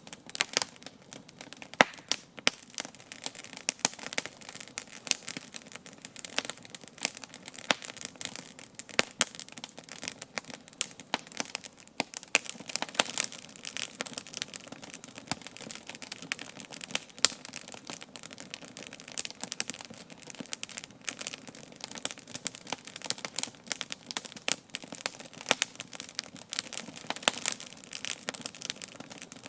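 Campfire wood burning and crackling, with many irregular sharp pops and snaps over a soft steady hiss of the flames.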